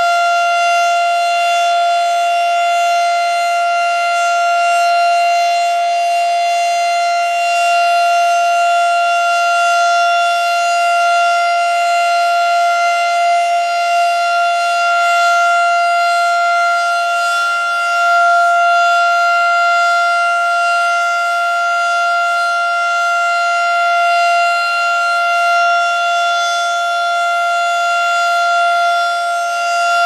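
Federal Signal STH-10A electro-mechanical outdoor warning siren sounding its full alert: one loud, steady tone held at a single pitch.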